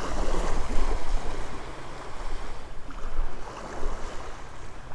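Small waves washing up and breaking on a sandy beach, swelling louder near the start and again about three seconds in, with a low wind rumble on the microphone.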